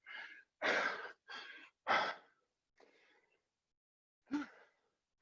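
A person breathing hard from exertion: four quick heavy breaths or gasps in the first two seconds, then a short voiced gasp about four seconds in.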